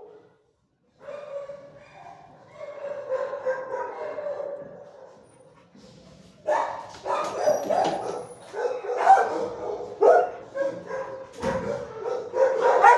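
A dog whining in a drawn-out, pitched whine, then from about halfway through barking and yelping over and over, louder.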